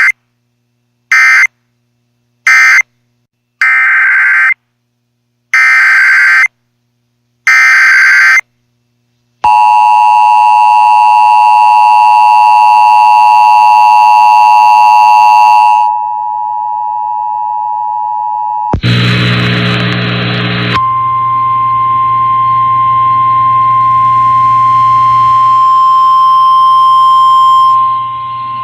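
Emergency alert signal over weather radio. First come six short, loud, screeching data bursts in the first eight seconds. Then a steady two-pitch attention tone holds for about six seconds. After a quieter tone and a brief burst of static, a steady single-pitch alert tone runs over hiss for about seven seconds, announcing a new warning.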